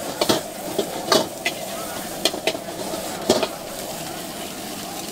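Metal ladle scraping and clanking against a steel wok as leafy greens and bean sprouts are stir-fried, over a steady sizzle of the vegetables in hot oil. About seven sharp clanks come in the first three and a half seconds, then the sizzling goes on alone.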